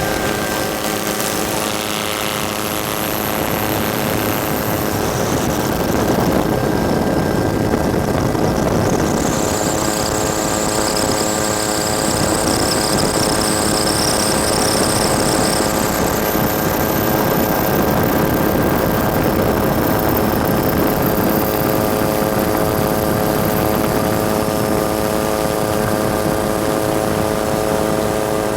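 Helicopter drone heard on board, a steady hum of rotor and turbine with a constant hum of many tones. A faint high whine rises and fades midway.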